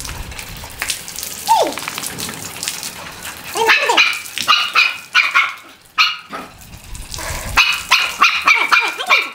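Dogs barking and yipping in repeated short bursts from about three and a half seconds in, after a stretch of water splashing from a garden hose.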